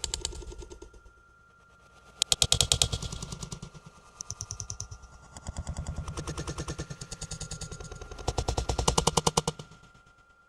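Rapid clattering: fast rattling runs of sharp knocks that come in bursts of one to several seconds, loudest about two seconds in and again near the end. A faint steady high tone sits underneath.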